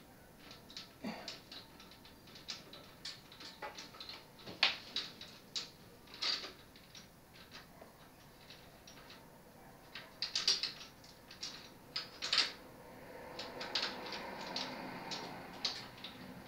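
Irregular metal clicks, clinks and taps as a bicycle kickstand and its mounting bolts are fitted against the frame by hand, with a short stretch of scraping near the end.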